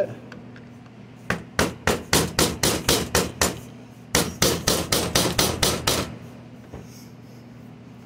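Hammer tapping on a cut-off flathead screwdriver set into a stripped Phillips-head screw in a cast-metal jackhammer housing, to bite in and break the screw free. Two quick runs of about ten sharp metal taps each, roughly five a second, with a short pause between.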